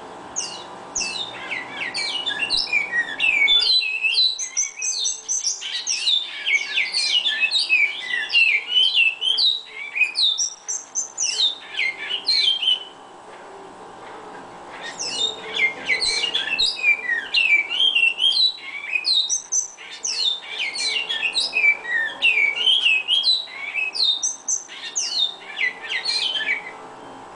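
Bicudo (great-billed seed-finch) singing: a long run of rapid, warbled, high notes, pausing for about a second and a half about halfway through before a second equally long run.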